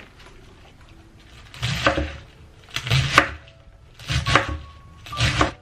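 Small packets being handled and set down on a table: four rustling thuds about a second apart.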